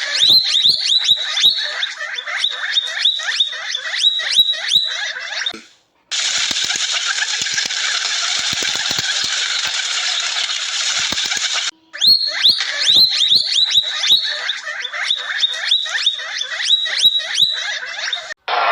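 Rapid, high squeaking calls of a small animal, several a second, in two stretches with a steady hiss between them.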